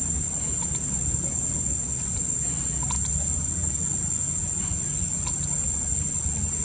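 Insects droning: one steady, high-pitched buzz that never lets up, over a low background rumble, with a couple of faint short chirps.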